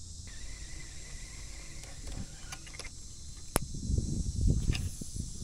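Handling noise from a spinning rod and reel being raised and cast: one sharp click about two-thirds of the way in, then uneven low rumbling and knocks close to the microphone.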